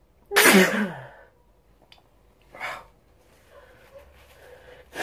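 A person sneezes once: a sudden loud burst with a voiced cry that falls in pitch. About two seconds later comes a short, sharp breath.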